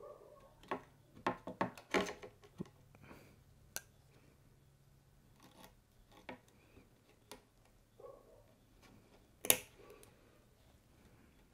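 Tennis racquet string being pulled through and tied off with pliers on a stringing machine: scattered small clicks, rubs and scrapes of string and metal tool, with one sharp, loudest click about nine and a half seconds in.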